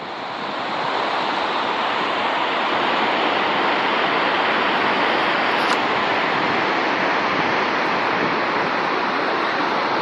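Steady rush of a mountain waterfall cascading down a gorge.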